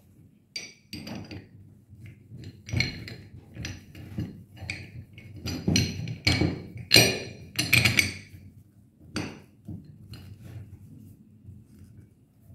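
Bolts clinking and knocking against the metal retainer rings and flange of a rubber bellow as they are pushed through the bolt holes and the parts are handled. Irregular sharp metallic clinks with a brief ring, loudest about seven to eight seconds in.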